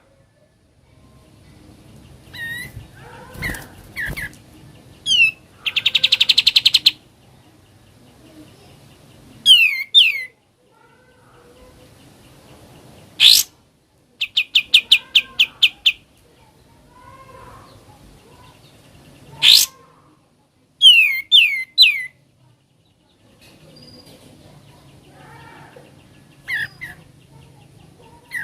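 Songbird singing in the 'ngebren' style: loud, sharp downward-slurred whistles alternating with fast rattling trills of repeated notes, in short phrases separated by pauses.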